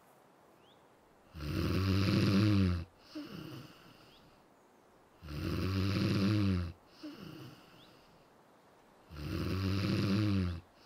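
Snoring for a sleeping dormouse: three long snores about four seconds apart, each followed by a shorter, softer breath out.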